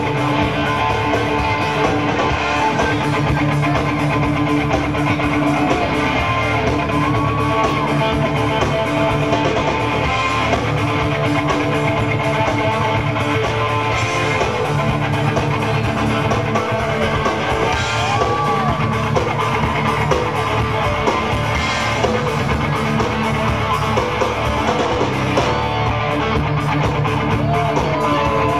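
A live blues band playing, led by electric guitar over a steady bass and drum backing, with several bent notes sliding up and down in pitch.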